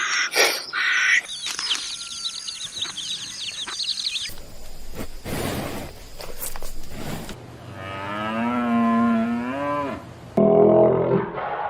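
Cattle mooing: one long call with a wavering pitch, followed near the end by a shorter, louder call. Earlier, a high repeated chirping runs for a few seconds.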